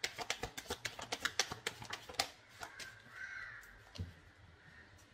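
Tarot cards being shuffled: a fast run of crisp papery clicks for about two seconds, then a few scattered taps. A short harsh call comes about three seconds in.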